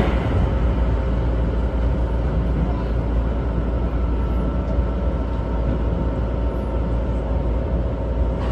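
Keikyu 1500 series electric train running slowly, heard from the driver's cab: a steady rumble of wheels and running gear. A faint steady whine joins it about three seconds in.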